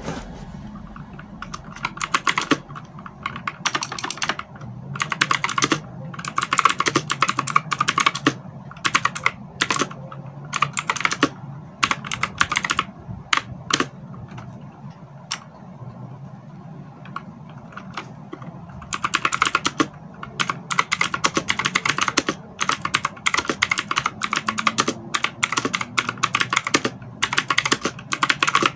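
Typing on a Crown mechanical keyboard: fast clacking runs of keystrokes, a sparser stretch of single key presses about halfway through, then fast runs again.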